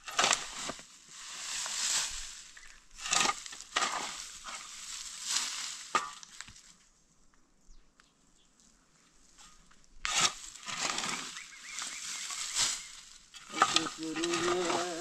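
Long-handled shovel scraping and digging into dry, stony dirt in a series of strokes, with a pause of a few seconds in the middle. A steady pitched sound starts near the end.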